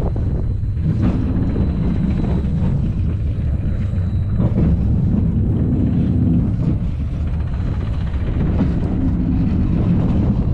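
Roller coaster train running along its track, heard from on board: a loud, steady low rumble of wheels on the rails, with wind buffeting the microphone.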